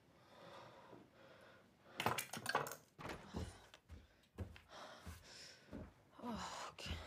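Several sharp knocks and clattering thumps starting about two seconds in, like things being knocked about and handled, followed by scattered thuds and a short strained breath or groan near the end.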